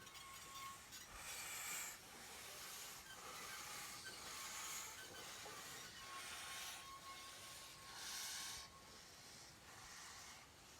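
Faint steam hiss from a steam locomotive, coming in soft irregular puffs every second or two, with a faint thin steady tone under it.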